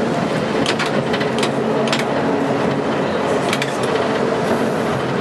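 Vintage electric tram running along street track, heard from inside the wooden-bodied car: a steady rumble of wheels and running gear with a scattering of sharp clicks and rattles.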